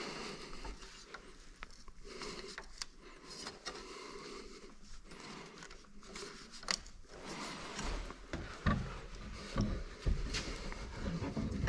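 Thin 1 mm steel sheet being bent by hand around a clamped steel tube: faint scraping and rubbing of gloved hands against the metal, with a few light clicks and knocks in the second half.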